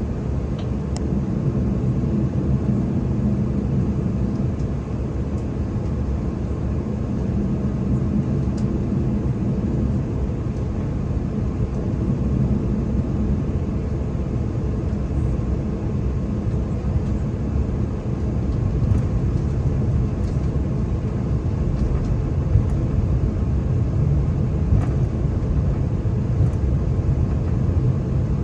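Cabin noise of an Embraer E190-E2 taxiing: the steady low rumble of its Pratt & Whitney PW1900G geared turbofans at low thrust, heard through the fuselage.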